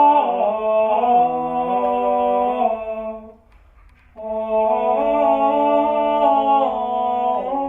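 Male vocal ensemble singing 13th-century Parisian polyphony (a clausula) a cappella: several voices holding and moving between sustained notes together. It comes in two phrases, with a short break a little before halfway.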